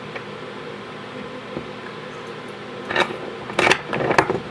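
Steady electrical hum, with a cluster of sharp clicks and rattles about three to four seconds in, as small hardware parts are handled and set in place.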